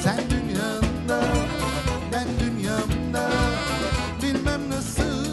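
A live band plays an instrumental passage with no singing: a drum kit keeps a steady beat under guitars, congas and keyboards.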